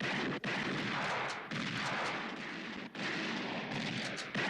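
Gunfire: shots follow one another so closely that they blur into a continuous noisy clatter, broken by a few short pauses.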